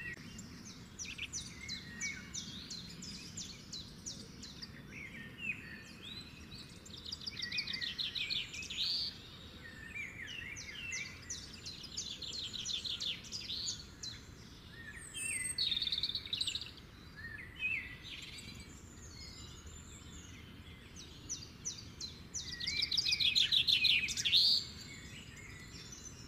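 Songbirds singing: rapid trills and short chirping phrases come in bursts every few seconds over a faint steady background hiss. The loudest passage comes near the end.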